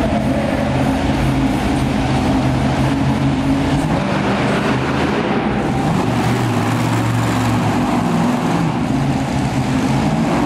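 Monster truck engine running loud in an indoor arena, its pitch rising and falling a few times as the driver works the throttle.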